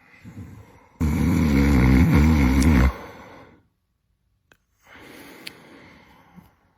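A person snoring: one loud, fluttering snore starting about a second in and lasting about two seconds, then a quieter breath a couple of seconds later. The soft tissue of the airway is vibrating as air is pulled through.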